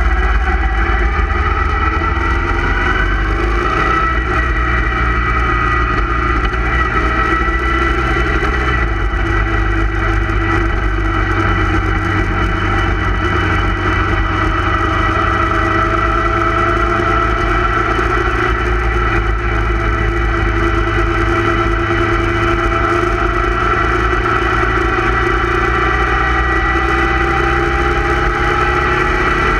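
A motorcycle engine running steadily at cruising speed, its pitch drifting slowly up and down, over a constant low rumble.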